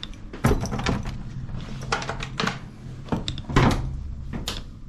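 A bathroom door being opened by its knob and handled: a series of sharp clicks and knocks from the latch and door, the loudest about three and a half seconds in.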